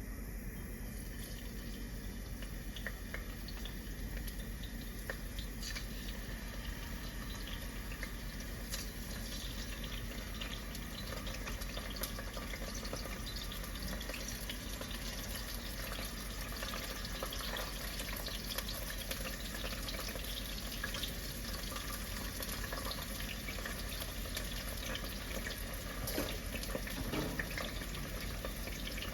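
Steady running water with small splashes and drips throughout.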